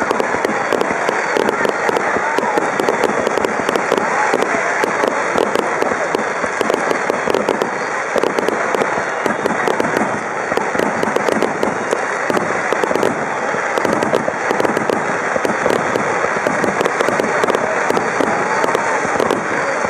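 Aerial fireworks shells bursting over a river in a rapid, continuous barrage: a dense stream of bangs and crackling with no pause.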